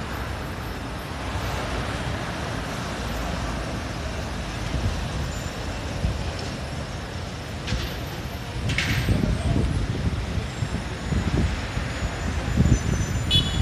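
City road traffic: a steady rumble of passing engines and tyres that grows heavier partway through, with a short hiss about nine seconds in and a brief high toot near the end.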